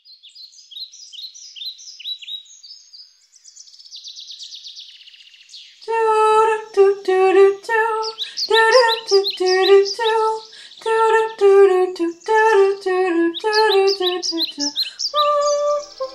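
Birds chirping and trilling for the first few seconds, then a high woman's voice singing a wordless melody in short, separate notes.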